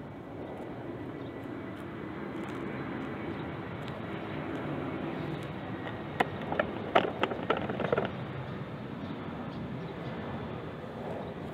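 A cat chewing food from a foam takeaway box, with a quick run of sharp crunching clicks about six to eight seconds in. Underneath is a steady low rumble of a distant engine.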